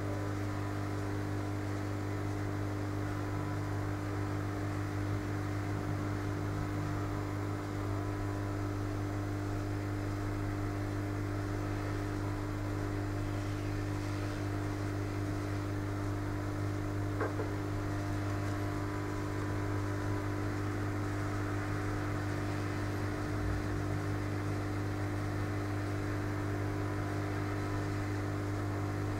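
Steady low electrical hum with an even rushing haze behind it, unchanging throughout, with one faint tick partway through.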